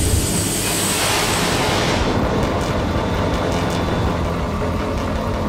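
Steelworks machinery din: a loud, steady industrial noise. The hiss drops away about two seconds in, leaving a lower rumble with a few faint clanks.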